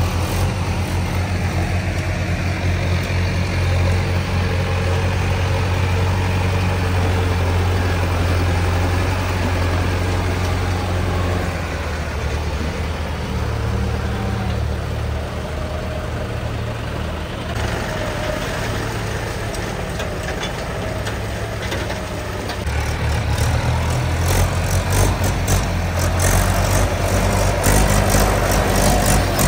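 Diesel tractor engine running steadily, its note shifting a few times, with a run of short knocks and rattles near the end.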